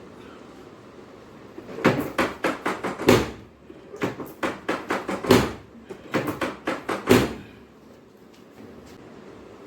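Hands rapidly striking a patient's body in chiropractic-style percussion, in three quick runs of about five sharp strikes a second.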